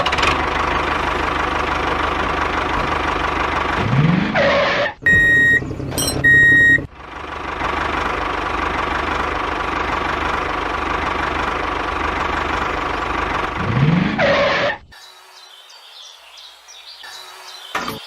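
Steady engine-like running noise of a small machine. It twice swells into a short rising swoop and cuts off abruptly, and the gap between holds two short high beeps.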